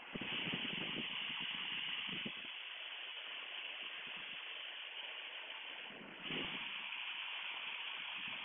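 Steady hissing engine and airflow noise in the cabin of a Piper Comanche 250 descending with power reduced. It gets louder for about two seconds at the start and again from about six seconds in.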